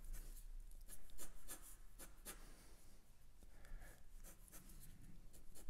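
A drawing pen scratching across paper in quick short strokes, sketching the lines of a floor plan. The strokes come in two bursts, about a second in and again near the end.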